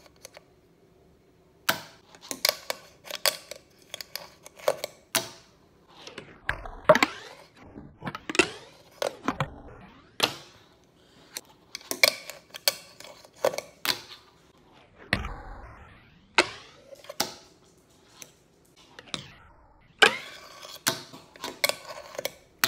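Fingerboard being worked on a small wooden ramp and tabletop: many sharp, irregular clacks as the deck and trucks hit the wood, with a few longer rolling sounds of the small wheels.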